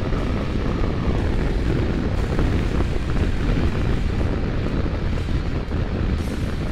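Steady wind rush and engine noise from an Aprilia Tuareg 660 parallel-twin adventure motorcycle under way on the road.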